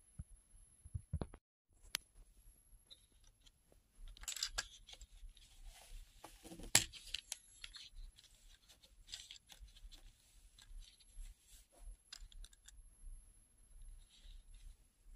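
Small LEGO plastic pieces being handled and set in place by hand: faint scattered clicks and rustling, with a louder sharp click about seven seconds in.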